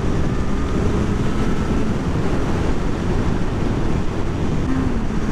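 Motorcycle ridden at road speed: a steady rush of wind on the microphone over the engine's running note, which comes through more clearly as a held tone near the end.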